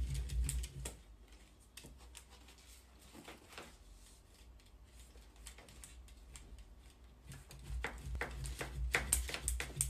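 Irregular light clicks and taps, quieter through the middle, with a low hum at the start that comes back near the end.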